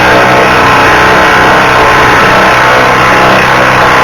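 A power tool's motor running steadily at one constant speed, loud, with a steady hum under a dense whir.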